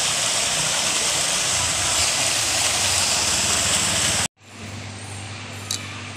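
Garden fountain's many water jets splashing into its pool, a steady rush of falling water. About four seconds in, it cuts off abruptly to a quieter low, steady hum from refrigerated vending machines, with one short click near the end.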